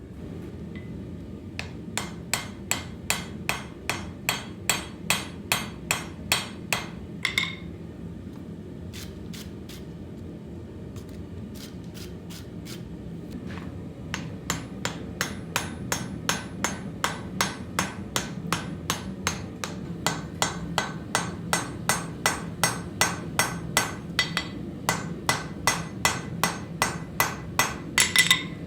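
Hand hammer forging steel on an anvil, shaping an adze: runs of sharp, rhythmic blows at about two to three a second, a short run first, then a few scattered strikes, then a longer run of blows. A steady low rumble lies under the hammering throughout.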